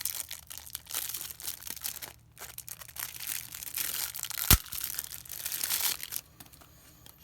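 Packaging being crinkled and torn open by hand for about six seconds, with one sharp click about four and a half seconds in; quieter near the end.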